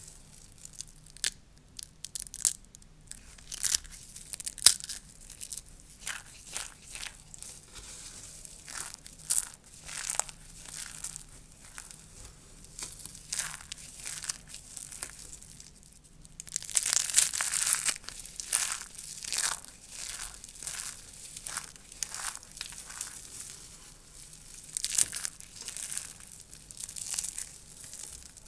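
Dry soap curls crunching and crackling as they are crushed and broken apart: an irregular run of sharp, crisp snaps, with a dense burst of crackling about seventeen seconds in.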